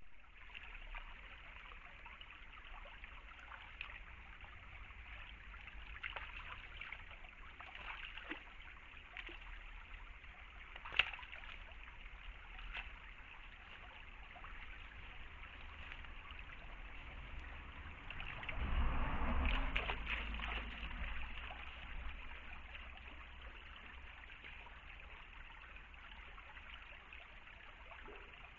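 Shallow stream trickling steadily, with scattered faint clicks, a sharp click about 11 seconds in, and a louder swell of noise lasting a couple of seconds about 19 seconds in.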